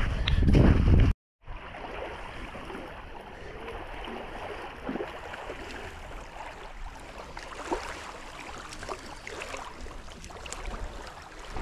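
Wind rumbling on the microphone for about a second, then a brief dead cutout. After it, a quieter steady hiss of lakeside ambience with a few faint small ticks.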